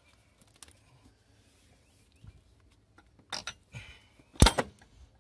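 A few faint clicks and rubbing, then a short clatter about three seconds in and a loud, sharp knock with a quick second strike about a second later: the power steering pump dropping into its mounting position in the engine bay.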